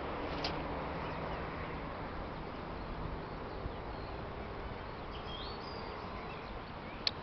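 Steady outdoor background noise, with a few faint, high chirps about five seconds in and a couple of sharp clicks.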